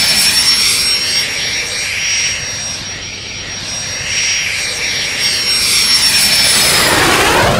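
BAC Jet Provost's Viper turbojet whining loudly on a low approach, coming in toward the listener and nearly overhead: a steady high-pitched whistle over a rushing roar whose tone sweeps up and down as the jet nears.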